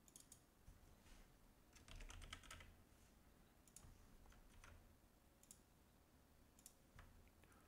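Faint computer keyboard typing: scattered keystroke clicks, with a short run of keystrokes about two seconds in.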